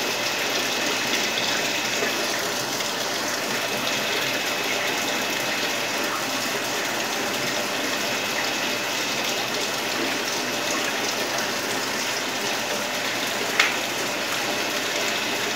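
Steady rush of running water in a fish-larva rearing tank, even throughout, with one sharp click near the end.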